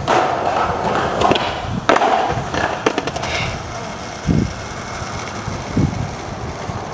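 Skateboard wheels rolling on concrete, then a hard slam about two seconds in as the skater falls and the board clatters away with a few smaller knocks.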